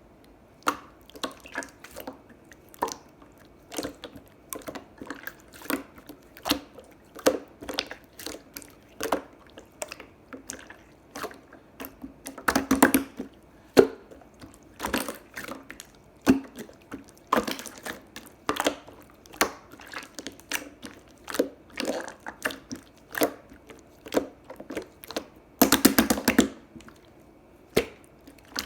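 Clear slime being squished and pressed by hand, giving wet clicks and pops about one or two a second, with two short runs of rapid popping, one about halfway and one near the end.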